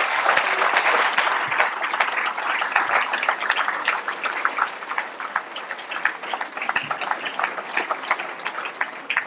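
A large audience applauding: a dense round of clapping, loudest at the start, that slowly thins out into more separate claps toward the end.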